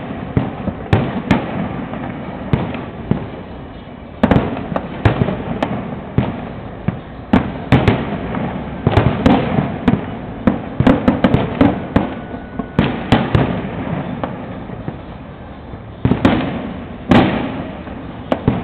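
Fireworks going off in quick, irregular succession: many sharp bangs and pops over continuous crackling, thickest in clusters about four seconds in, from nine to thirteen seconds, and again near the end.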